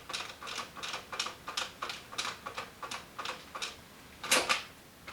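A quick, fairly even run of sharp clicks, about four or five a second, with one louder double click about four seconds in.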